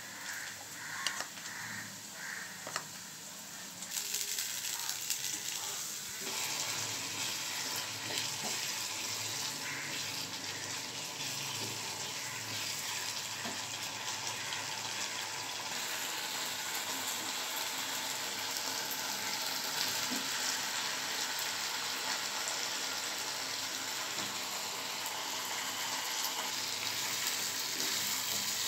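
Masala sizzling in hot oil in a frying pan, a steady hiss that starts about four seconds in and grows louder near six seconds, with light scraping from a wooden spatula stirring it.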